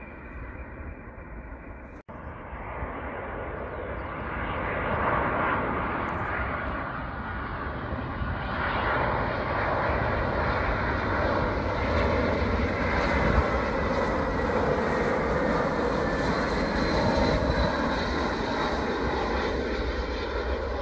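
Airliner jet engine noise; after a short break about two seconds in, a British Airways Airbus A320-family jet on final approach and touchdown, its engines a steady roar with a thin high whine. The roar grows louder over the next few seconds and holds.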